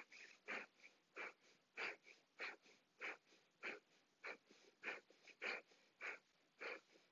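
Breath of fire: short, forceful exhales through the nose, a little under two a second, each driven by a snap of the navel toward the spine, with faint quick inhales between them.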